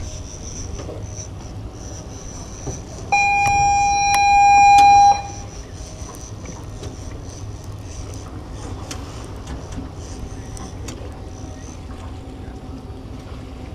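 A loud steady horn blast lasting about two seconds, starting about three seconds in, over a steady low background rumble with light scattered clicks.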